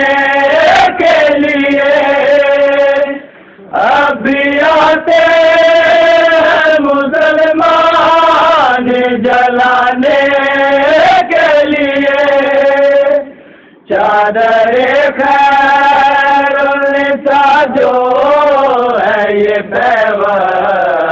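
A group of men chanting a noha (Shia lament) in unison, in long held lines that break off briefly twice.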